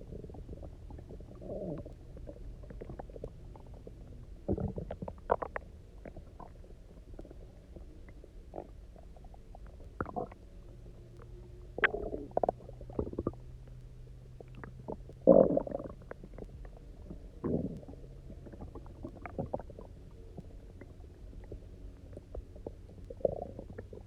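Human stomach rumbling and gurgling from hunger: an empty stomach after a day without food, holding water just drunk. Short gurgles come every few seconds, the loudest about fifteen seconds in.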